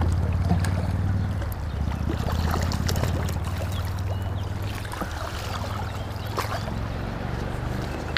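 Shallow river current rushing around a wader, with a steady low rumble and a few small splashes from a hooked trout thrashing at the surface as it is played toward a landing net.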